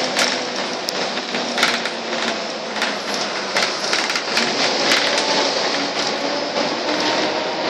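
Volvo double-decker bus on the move, heard inside the passenger cabin: steady engine and road noise with frequent short rattles from the interior fittings.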